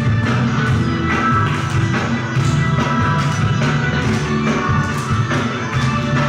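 Upbeat Brazilian pop music with guitar and a steady beat.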